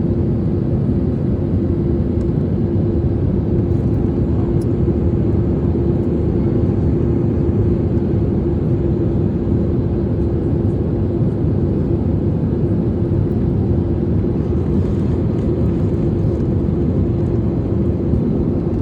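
Steady cabin noise of an airliner in flight: an even rush of engines and airflow with a constant low hum.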